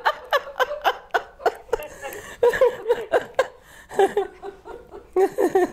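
Two women laughing heartily, with bursts of hand clapping mixed in; the laughter comes in short choppy peals and fades near the end.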